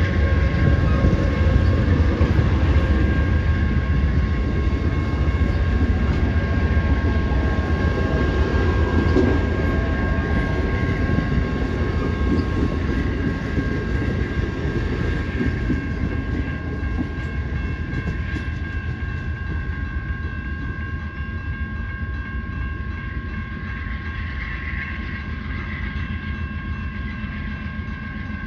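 A train rolling past with a heavy, steady rumble and two thin steady high tones over it, slowly growing quieter as it moves away.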